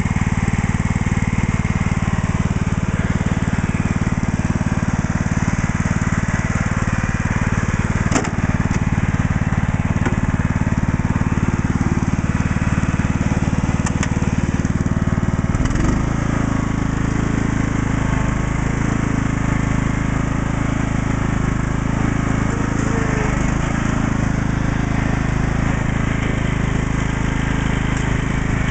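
Kohler engine of a Scotts lawn tractor running steadily, its note shifting slightly about halfway through.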